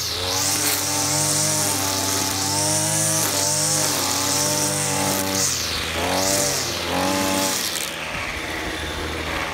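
Gas string trimmer engine running as it cuts grass, the throttle opening and easing off again and again so the pitch rises and falls. The engine note fades out near the end.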